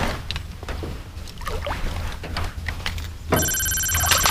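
A hooked smallmouth bass splashing and thrashing at the surface beside the canoe, with scattered small splashes and knocks. A little over three seconds in, a bright bell-like chime sound effect starts abruptly and holds several steady tones for about a second.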